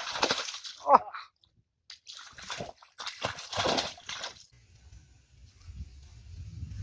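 Water splashing in a shallow stream as a mesh hand net is swept and scooped through it, in three bursts over the first four and a half seconds. After that only a faint low rumble remains.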